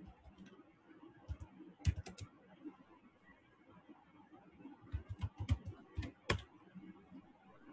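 Keystrokes on a laptop keyboard, typed in short irregular bursts: a few clicks about one to two seconds in, then a quicker run around five to six seconds in.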